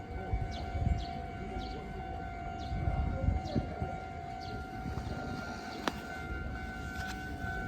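Railway station ambience: a steady electronic tone held over a low, uneven rumble, with short high falling chirps at irregular intervals and a single sharp click about six seconds in.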